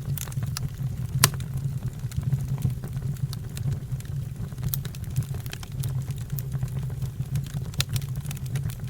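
A fire burning, crackling with frequent sharp pops over a steady low rumble; one louder pop about a second in.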